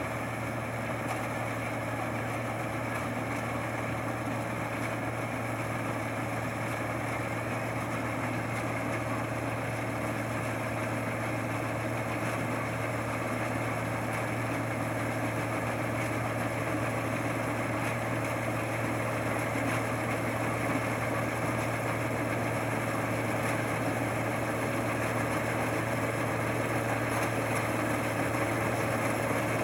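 Rice combine harvester's engine running steadily, with a constant drone that grows slightly louder toward the end.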